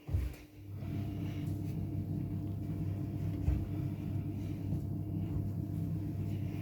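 Washing machine starting up: a short knock, then about a second in the machine begins running with a steady low hum and a faint whine.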